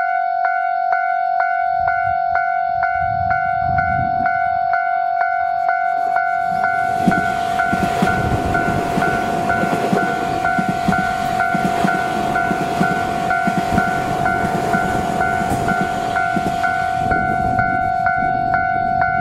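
A railway level-crossing warning bell rings steadily, about two strikes a second. From about six seconds in to about seventeen seconds in, a Tobu 50090-series electric train passes close by, its wheels clattering on the rails under the bell.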